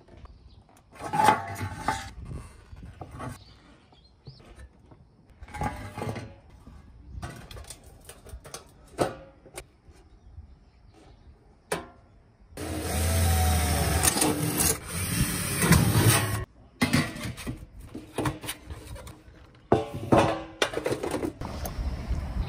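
Thin stainless steel sheet worked by hand with pliers: short bouts of scraping, creaking and clinking metal as a cut flap is gripped and bent back. About halfway through comes a louder continuous rasping stretch lasting around four seconds.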